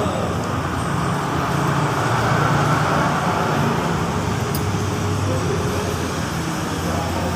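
Steady rumble of motor vehicle traffic with a low hum, swelling slightly about two to three seconds in.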